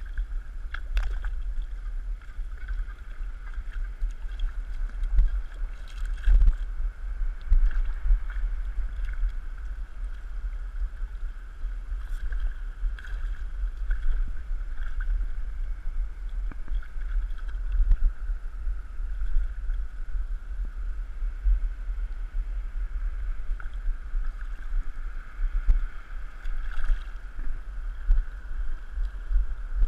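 A steady, low, gusting rumble of wind and sea water against an action camera in a waterproof housing, with a few short knocks spread through it.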